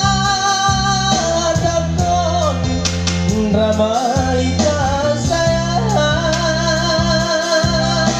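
A solo voice singing a Batak-language pop song over a band backing, with long held notes that waver and slide between pitches.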